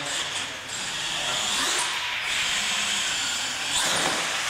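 Small RC monster truck running on a concrete floor: a steady high motor whine mixed with tyre noise, briefly louder about four seconds in as it drives up a wooden ramp.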